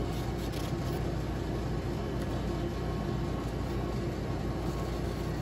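Steady mechanical hum and air noise of background machinery, with a few faint light clicks early on as a paring knife trims the ribs from a red bell pepper.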